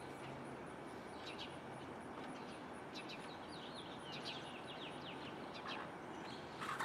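Faint outdoor ambience with small birds chirping: scattered short high chirps, and a quick run of them about three to four seconds in.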